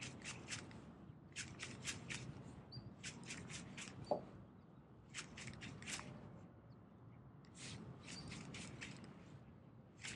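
Faint, quick clicking from a spinning reel and rod, in short bursts every second or two, as a soft jerkbait is twitched and reeled in.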